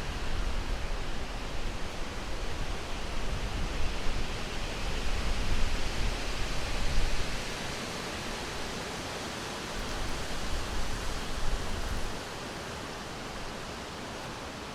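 Summer wind blowing through a forest: a steady rushing that swells in gusts, with a low rumble underneath, then settles to a quieter, even level about twelve seconds in.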